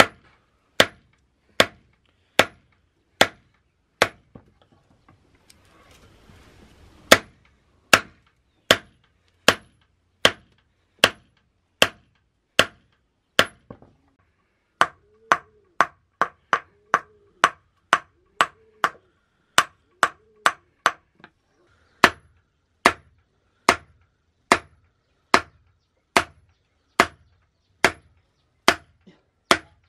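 Hand hammer striking hot steel on an anvil while forging a knife blade. The blows come steadily, a little more than one a second, each short and ringing, with a break of a few seconds near the start.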